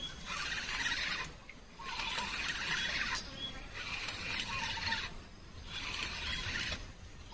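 Wildlife calling outdoors in a repeating pulse: a buzzing call about a second long, broken by short gaps and repeated roughly every two seconds.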